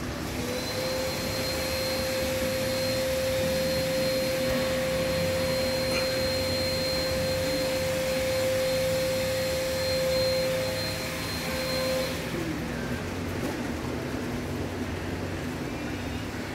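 Model subway train running on a layout's track: a steady rushing noise with an electric whine held at one pitch, which cuts off about twelve seconds in.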